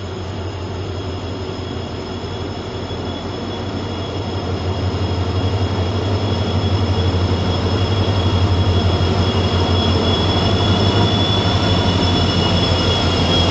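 Diesel locomotive hauling a goods train, approaching and running past the platform, growing steadily louder. Its engine gives a deep steady rumble, with a thin high whine held above it.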